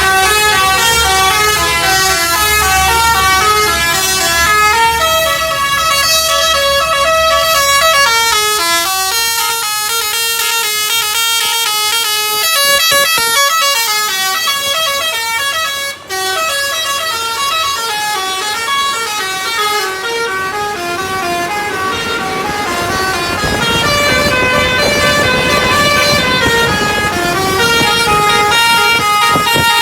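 Indonesian 'telolet' bus horn, a Basuri multi-tone musical air horn, playing a quick run of stepped notes as a melody, with only a momentary break about halfway through.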